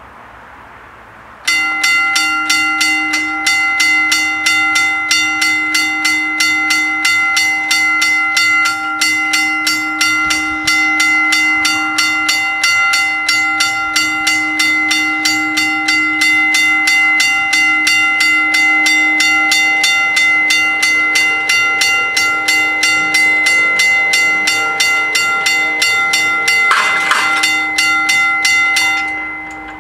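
Level crossing warning bells ringing with rapid, even strikes, signalling that the crossing is closing for an approaching train. They start about a second and a half in and die away just before the end.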